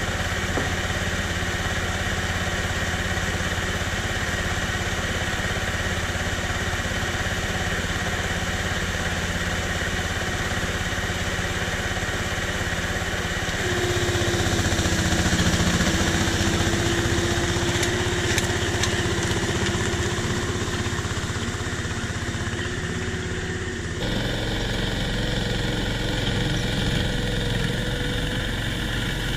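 Homemade tank's engine running steadily. About halfway through it gets louder and a steady whine joins it, and near the end the sound changes abruptly as the tank tows the car along.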